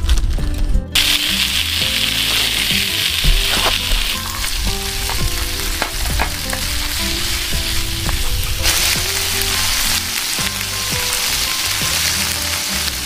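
Chopped chillies and garlic frying in hot oil in a non-stick pan, sizzling hard from about a second in and easing off after a few seconds, with light clicks of stirring. The sizzle flares up again for the last few seconds as spaghetti and a dark sauce fry in the pan.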